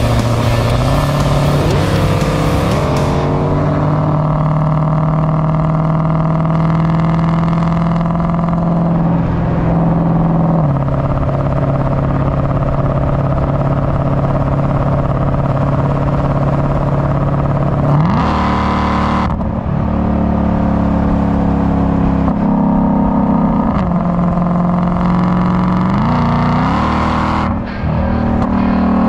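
Shelby Mustang V8 engine and exhaust running at highway speed over road and wind noise. Its pitch drops and rises several times, with a quick climb past the middle as it accelerates.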